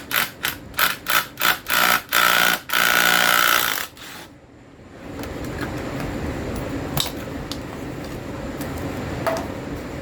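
Power wrench run in bursts on a bolt: about six quick pulses in the first two seconds, then two longer runs that stop about four seconds in.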